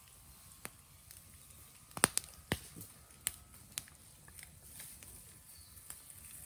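Raw bamboo bonfire crackling: a few sharp, irregular pops, loudest in a cluster about two seconds in, over a low background.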